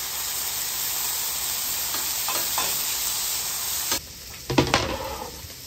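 Sliced smoked pork belly sizzling on a hot flat-top griddle, its fat starting to render, while a metal spatula scrapes and spreads the slices. About four seconds in the sizzle cuts off abruptly, and a few light knocks follow.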